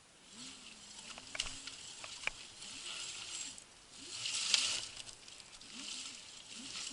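White Siberia WS-Pro 2WD electric citycoco scooter riding over wet, muddy ground. Its motor gives a faint whine that rises and falls in pitch with the throttle, under a swelling hiss of tyres on wet ground that is loudest about halfway through. A few sharp clicks come early on.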